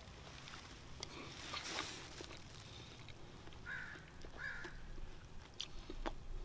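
Faint scraping and small clicks of a knife working into the flesh of a halved watermelon, with two short bird-like calls in the background midway.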